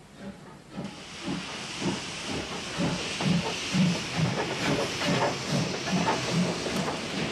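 Steam locomotive getting under way: its cylinder drain cocks hissing steam, which starts about a second in, over a steady run of exhaust chuffs a little more than two a second.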